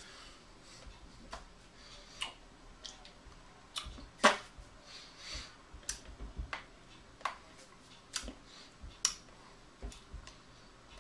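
Irregular sharp taps and claps of hands meeting and brushing while signing in sign language, the loudest about four seconds in.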